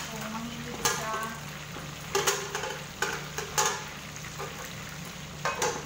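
Marinated fish frying in a pan of hot oil, sizzling steadily, with several short clinks and knocks of utensils and cookware about one second in, between two and four seconds in, and near the end.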